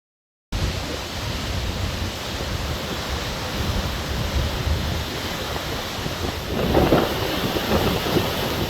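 Hurricane wind buffeting the microphone with a deep rumble, cutting in abruptly after a moment of silence, with a stronger gust about seven seconds in.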